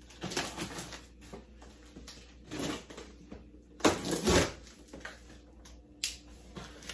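Packing tape being torn and peeled off a cardboard box in several short ripping bursts, the loudest about four seconds in.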